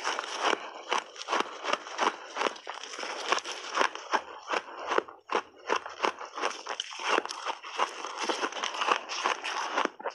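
Crunching of a big mouthful of shaved ice being chewed, with gloved hands working the icy mass in the tub: a dense, irregular run of crisp crackles and crunches with a few short lulls near the middle.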